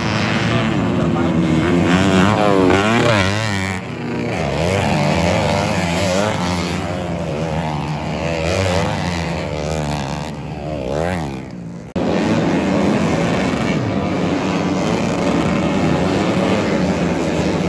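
A pack of racing dirt motorcycles on a grasstrack circuit, several engines revving hard at once, their pitches rising and falling as bikes accelerate and pass. The sound jumps abruptly twice, about four seconds in and again near twelve seconds.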